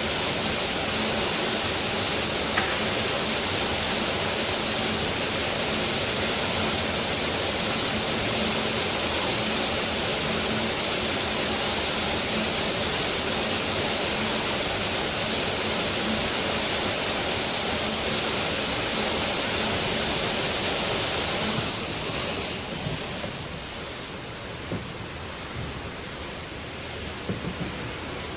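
Tape slitting and rewinding machine running with a steady, loud hiss and a faint low hum. About three-quarters of the way through the sound drops off, settling to a quieter level.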